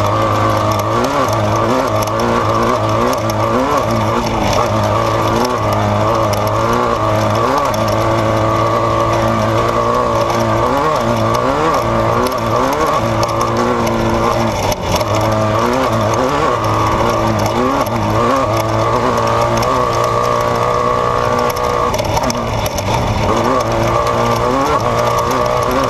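Desert race vehicle's engine running hard, its pitch rising and falling every second or so as the throttle is worked, over a steady hum.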